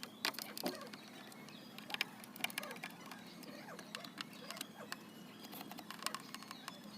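Scattered small clicks, taps and light scraping as screws are worked out of a tower speaker's woofer and its parts are handled, over a faint steady hum.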